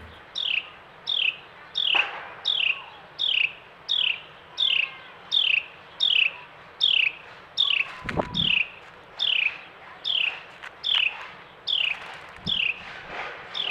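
Carolina wren singing a long, steady series of clear down-slurred whistled notes, about one and a half a second. There is a dull bump about eight seconds in.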